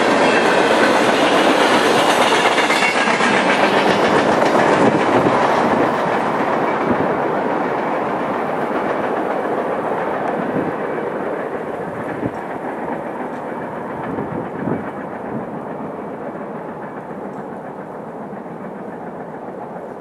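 Freight train's boxcars rolling past on the rails. The end of the train goes by in the first few seconds, and the sound then fades steadily as the train moves away.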